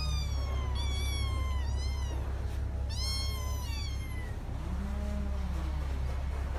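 Kittens meowing: about five short, high-pitched meows in the first four seconds, then one lower meow about five seconds in, over a steady low hum.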